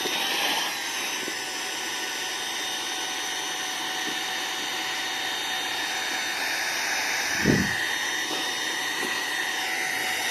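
Ambrane Minivac 02 handheld mini vacuum cleaner running steadily, a small motor's whine over rushing air, as it sucks up scraps of paper. A brief thump about seven and a half seconds in.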